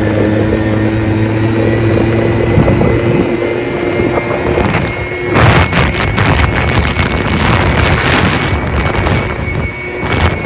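A small motorbike engine running, its whine rising slowly as it gathers speed. Wind buffets the microphone from about halfway.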